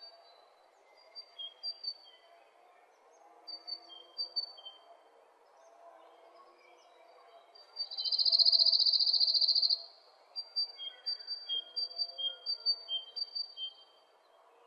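Small birds chirping in short, repeated high notes, with a loud, high buzzing trill lasting about two seconds in the middle.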